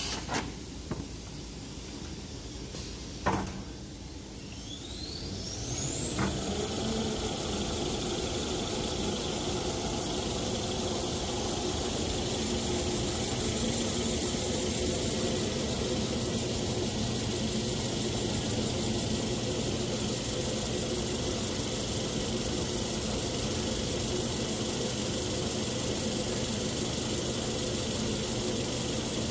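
XY-TQ-B automatic toilet paper and kitchen towel rewinding machine coming up to speed. A high whine rises over a couple of seconds and then holds one steady pitch over a steady mechanical hum, after a few sharp clicks in the first seconds.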